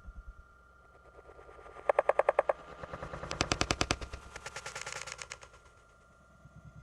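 A rapid clattering rattle, about a dozen knocks a second, in three bursts: a short loud one about two seconds in, then two longer ones with a brighter, higher rattle around three and a half and five seconds in.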